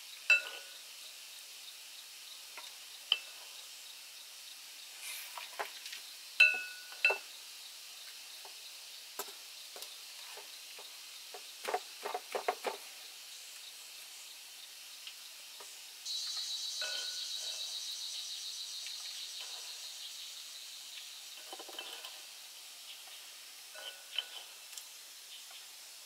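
Metal cooking utensils clinking and scraping against a pot or pan, with short ringing notes, some in quick clusters, over a faint steady sizzle. About two-thirds of the way through, a high buzzing starts suddenly and fades away over several seconds.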